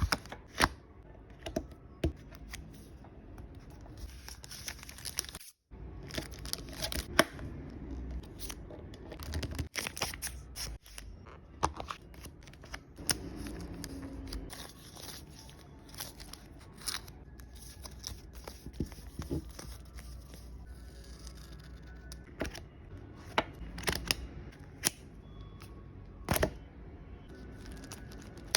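Photocards being packed in plastic sleeves and packaging: crinkling plastic, tearing and many sharp clicks and taps, broken up by a brief dead gap from an edit.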